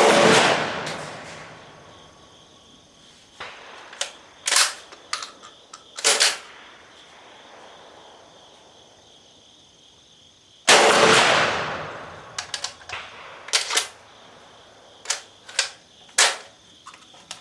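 Two shots from a BP12 12-gauge bullpup shotgun, about ten and a half seconds apart, each echoing for a second or two. Between and after them come sharp metallic clacks of the gun being handled and its action worked, as it misfeeds this buckshot.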